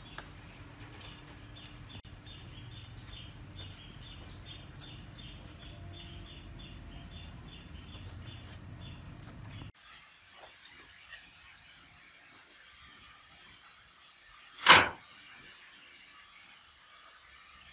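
Quiet workshop handling of an old CRT television's plastic cabinet parts, with a faint run of quick high ticks, two to three a second, through the first half. About fifteen seconds in comes one loud, sharp knock as the heavy picture tube is seated in the plastic front bezel.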